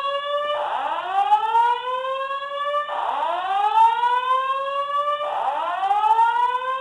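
Building fire alarm sounding a loud whoop tone: a rising sweep about two and a half seconds long that drops back and starts again, three times over.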